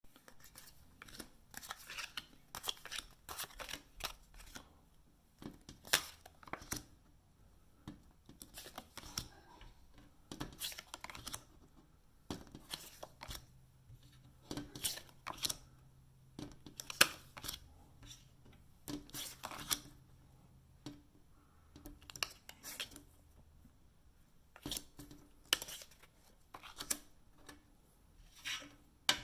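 Playing cards and plastic poker chips being handled on a glass tabletop: irregular clicks, taps and short sliding scrapes as cards are set down and chips pushed along.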